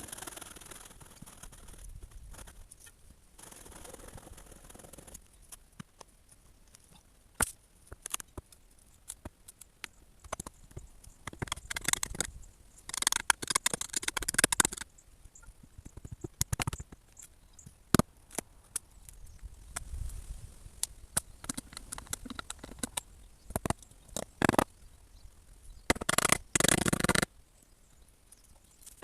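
Hand work on timber deck boards: scattered sharp knocks and clicks, with bursts of scraping and rubbing about halfway through and again near the end.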